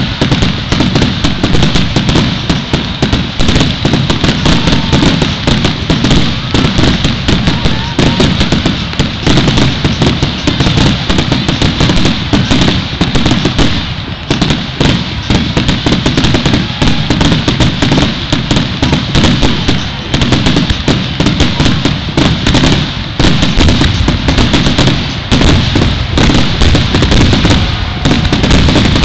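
Fireworks display in a dense barrage: many shells bursting and crackling in rapid succession with no let-up, loud throughout.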